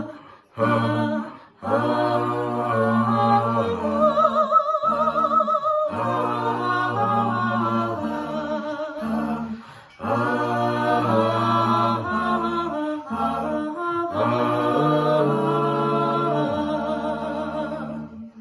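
A cappella vocal group singing in close harmony without words the recogniser could catch: a bass voice holds low notes under sustained chords, and a higher solo line with strong vibrato rises above them about four seconds in. The singing stops just before the end.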